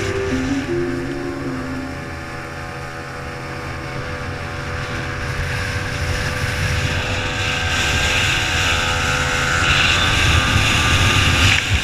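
Outboard motor of a Thundercat racing inflatable running flat out, heard from on board. Wind and spray hiss on the microphone, growing louder over the last few seconds.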